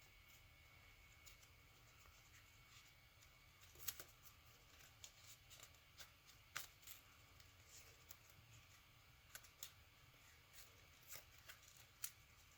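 Paper being folded and creased by hand: faint, scattered crinkles and taps, the sharpest about four seconds in, in the middle and near the end.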